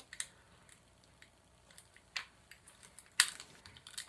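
Scattered small clicks and taps of a small plastic eyeshadow compact being handled and fiddled with in the hands, the sharpest click a little after three seconds in.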